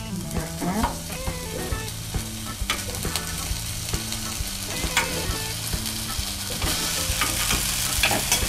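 Braised chicken pieces sizzling as they are laid with metal tongs into a hot grill pan, with scattered clicks of the tongs against the pan. The sizzle grows louder near the end as more pieces go in.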